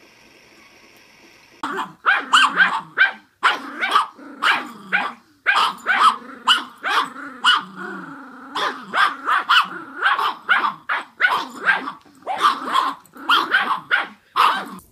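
Two Yorkshire terriers growling and yapping in a tug-of-war over a toy. A rapid run of short snarls and yaps starts about two seconds in, with a longer growl about halfway through.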